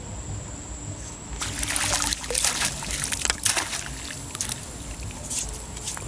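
Shallow water splashing and sloshing as a long-handled landing net is worked through it, a burst of irregular splashes from about a second and a half in until about four seconds in. A faint steady high-pitched whine sits underneath.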